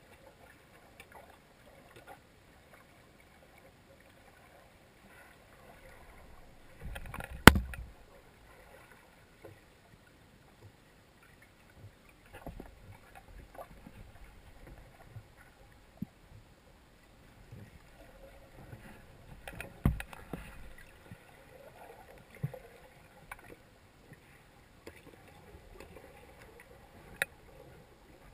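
Underwater sound picked up by a submerged camera on a lake bottom: faint water noise with scattered knocks and clicks, the loudest about seven and a half seconds in and another cluster around twenty seconds in.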